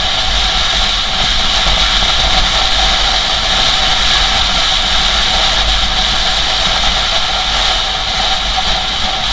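Motorcycle cruising at a steady speed, its engine running at an even note under a constant rush of wind over the bike-mounted camera's microphone. A steady high hiss sits over a low rumble, with no change in throttle.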